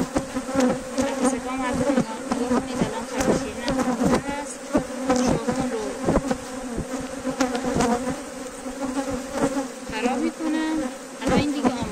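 A mass of honeybees buzzing in a steady hum around an open hive, with frequent short clicks and knocks throughout.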